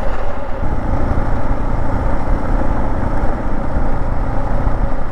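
Husqvarna 701 enduro motorcycle being ridden, a steady low rumble of engine and wind noise with no distinct pitch.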